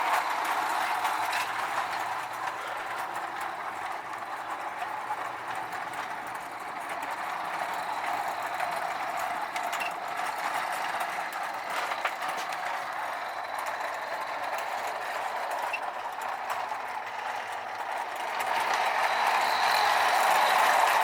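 Marx toy train running around the track with a steady mechanical whir and rattle of its motor and wheels, growing louder near the end.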